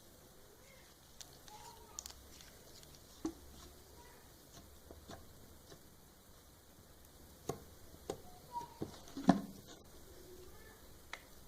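Slime being handled, giving small wet clicks and pops at irregular intervals, with a quick run of louder pops late on.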